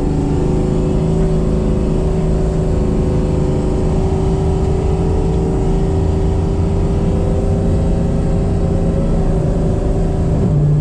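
The supercharged 4.6-litre DOHC V8 of a 2003 Ford Mustang Mach 1 running steadily while the car drives under light load. The pitch rises slowly, then drops a little near the end.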